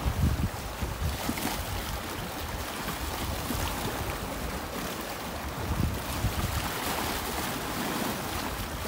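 Small waves washing and splashing against the rocks of a seawall, with wind gusting on the microphone in uneven low rumbles.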